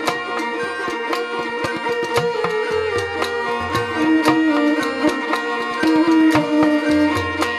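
Rajasthani folk instrumental music: a kamaicha playing the melody over a steady drone, with the twang of a morchang jaw harp and a regular beat of drum strokes.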